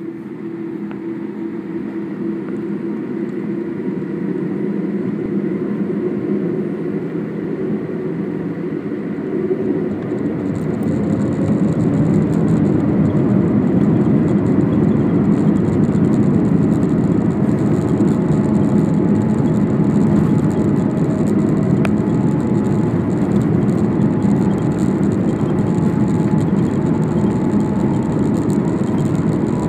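Jet airliner's engines heard from inside the cabin, building up to takeoff thrust about ten seconds in, then a loud, steady rush of engine and runway noise through the takeoff roll.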